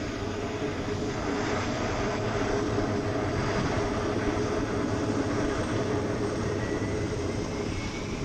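Sikorsky S-58T helicopter running with a steady drone, a faint rising whine coming in near the end.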